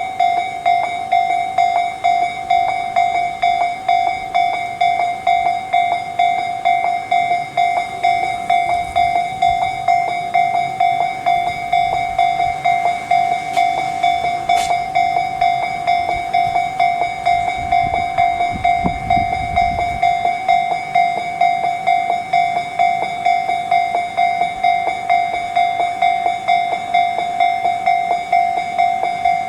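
Japanese railway level-crossing alarm, its electronic bell of the Tobu Tojo Line type ringing continuously in even, rapid dings, a bit over two a second. About two-thirds of the way through a brief low rumble sits under it.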